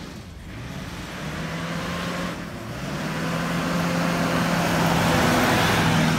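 Humvee's 6.5-litre turbo-diesel V8 pulling the truck along, its engine note climbing twice and then holding. Tyre noise on loose sand builds over the engine and is loudest near the end as the truck passes close.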